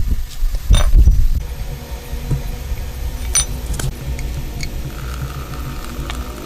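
A few sharp metallic clinks and knocks over a steady low mechanical rumble.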